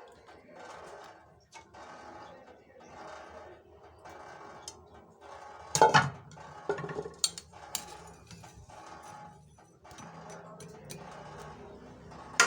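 Soft background music with a steady pulse, and about six seconds in a loud clank of kitchen utensils, followed by a few lighter clinks.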